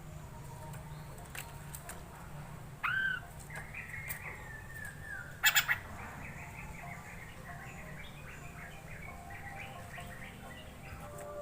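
Poksay mandarin (Chinese hwamei) giving soft, scattered calls and quiet twittering: a short upward-bending call about three seconds in, a quick run of short notes, and one brief louder sharp note about halfway through.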